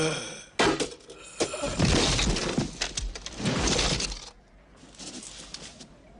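Film sound effects of an armoured warrior falling: a short cry, a sharp impact, then a loud crashing noise lasting a couple of seconds. A fainter hissing noise follows about five seconds in.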